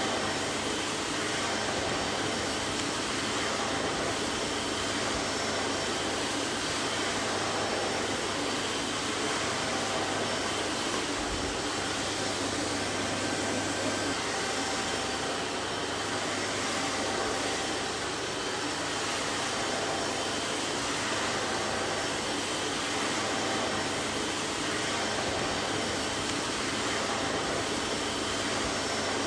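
Vacuum cleaner running steadily, a constant rushing whine of motor and airflow that holds its level throughout.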